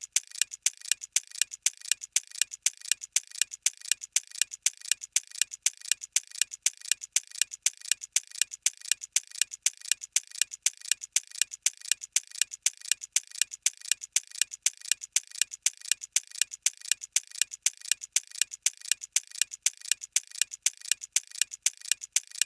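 Clock ticking sound effect: a steady, quick, evenly spaced ticking that runs as a thinking-time countdown while a quiz question is up.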